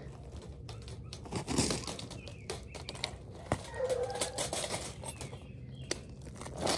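Wire cage trap rattling and clinking as it is handled, with scattered sharp metal clicks and scrapes, and a short wavering low call about four seconds in.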